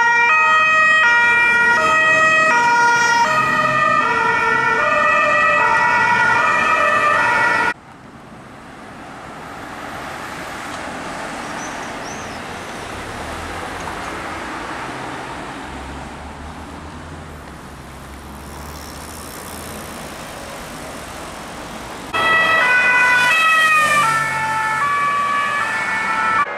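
Italian police escort vehicles' two-tone sirens alternating between a high and a low note, cutting off suddenly about eight seconds in. Road traffic noise follows, with a vehicle passing, and then the two-tone siren returns loud about 22 seconds in.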